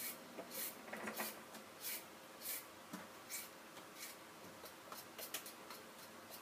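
Vegetable peeler scraping the skin off a raw carrot in quick, repeated strokes, a little under two a second, each a short, faint rasp.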